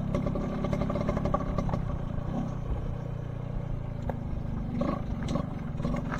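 Motorcycle engine running steadily while under way, with a few light clicks or rattles in the second half.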